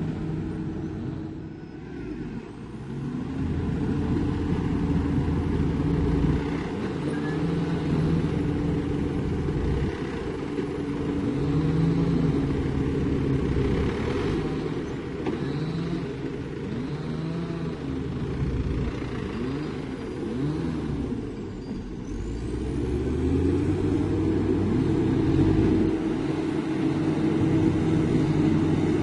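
Heavy diesel engines of earthmoving machines working, their pitch rising and falling repeatedly as they rev up and ease off.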